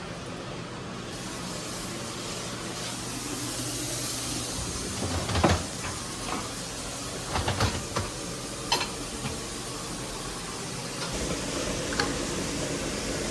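Kitchen sounds: a steady hiss with several sharp clatters of pots and utensils. The loudest knock comes about five seconds in, a quick cluster follows a couple of seconds later, and a last one comes near the end.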